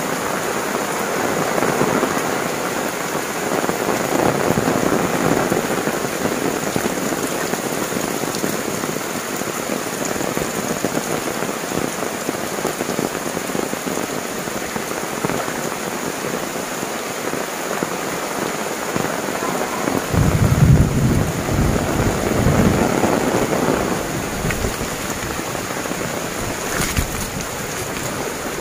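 Heavy downpour: steady, dense rain falling on roofs and leaves. A deep rumble swells about twenty seconds in and fades over a few seconds.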